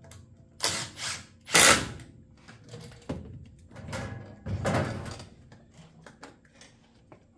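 Shindaiwa 600SX chainsaw body and a cordless drill/driver being handled and set down on a workbench: a run of clunks and clatters, the loudest a little under two seconds in, then more knocking and scraping around four to five seconds in.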